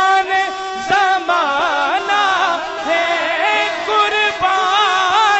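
A man singing a naat into a microphone, holding long, wavering ornamented notes on vowel sounds.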